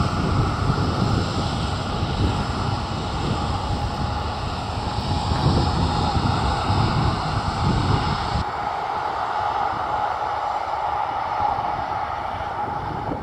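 Jet engines of a WestJet Boeing 737 taxiing on the runway: a steady jet drone. A low rumble of wind buffeting the microphone drops away about two-thirds of the way through.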